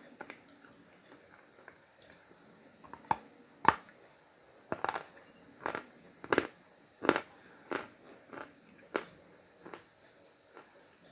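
Khrapovsky chalk being bitten and chewed close to the microphone, with separate crisp crunches. They are sparse at first; a sharp bite comes about three and a half seconds in, then crunches follow roughly every half second to second.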